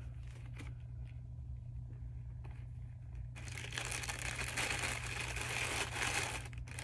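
Thin plastic packaging crinkling and rustling as it is handled, starting about halfway through and carrying on steadily, after a few faint rustles. A low steady hum runs underneath.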